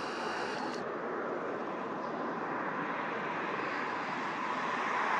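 Jet noise from a Boeing 747-8 freighter's four turbofan engines as it passes overhead on landing approach with gear down. The sound is a steady, even rushing that grows louder toward the end as the aircraft comes closer.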